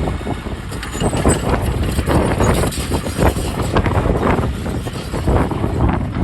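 Heavy diesel earthmoving machinery running with a dense low rumble and irregular rattles and knocks.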